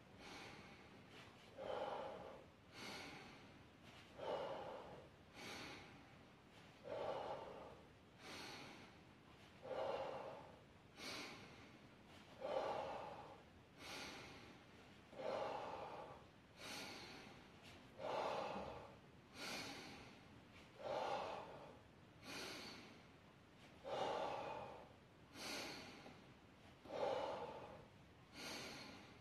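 A man breathing hard and rhythmically through nose and mouth while doing dumbbell lateral raises, one breath about every second and a half in time with the lifts.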